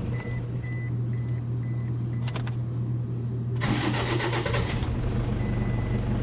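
Toyota D4D diesel engine running steadily at idle, with a short burst of rushing noise about three and a half seconds in.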